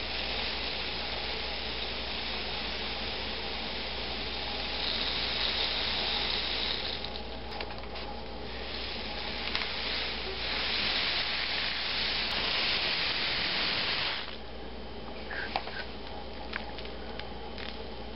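Homemade cardboard-tube rain stick tilted end to end, its filling trickling down past the sticks pushed through the tube in a steady hiss. The hiss swells twice and drops off about fourteen seconds in, leaving a softer trickle with a few light clicks.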